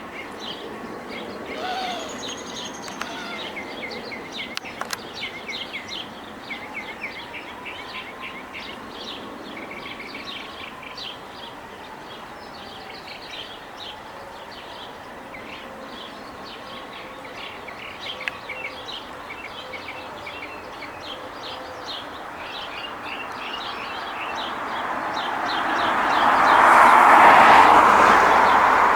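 Small birds chirping in many quick, high notes. Near the end a passing vehicle rises to a loud rushing noise that drowns out the birds, the loudest sound here.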